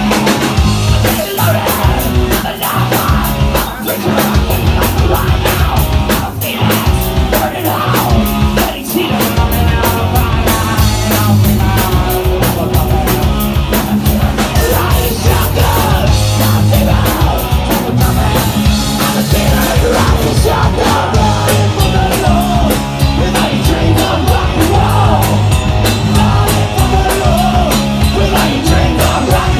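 Live rock band playing loud, with electric guitar, a pounding drum kit and a singer shouting and singing over them, heard close to the stage in a small club.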